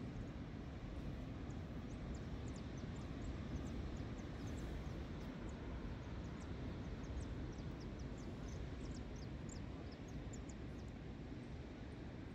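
Many short, high chirps of small birds scattered over a steady low rumble of outdoor noise.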